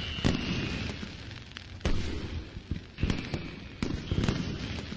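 Fireworks sound effect: several sharp bangs with crackling between them, and a high whistling tone in the first second and again about three seconds in.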